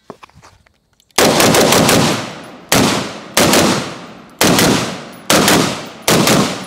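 Unsuppressed 7.62x39 CZ Bren 2 rifle firing: a quick string of shots about a second in, then single shots less than a second apart, each trailing off with echo.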